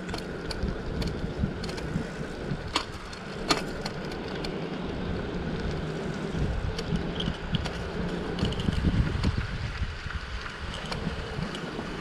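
Bicycle riding along a paved street: tyre and wind noise on the microphone, with sharp clicks and rattles from the bike now and then, two louder ones about three seconds in.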